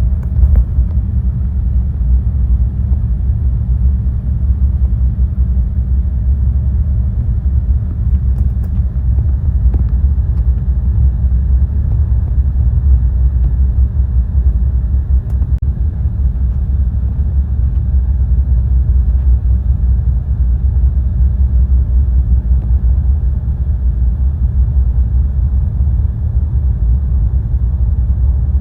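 Steady low rumble of jet airliner cabin noise inside a KLM Cityhopper Embraer 175, with a faint steady hum above it.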